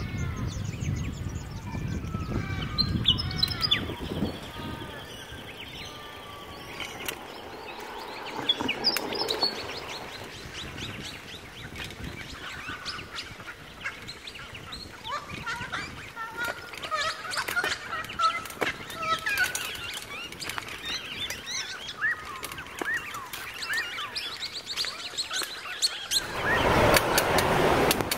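Birds chirping and calling in bushland over the rattle and crunch of a bicycle rolling on a gravel trail. Near the end a loud rush of wind and road noise takes over.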